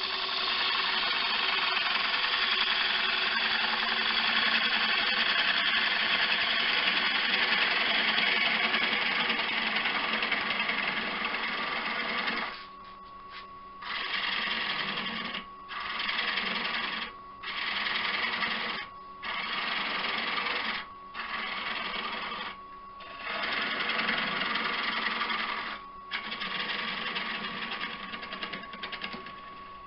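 Turning tool cutting into an elm dish spinning on a wood lathe: one long continuous cut for about twelve seconds, then a run of short cuts a second or two each with brief pauses between. A steady hum from the lathe runs beneath, heard on its own in the pauses. The cuts take the face a little deeper to clear old screw holes.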